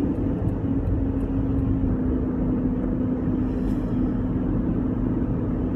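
Road vehicle heard from inside while driving: a steady low engine and road rumble with a steady droning hum.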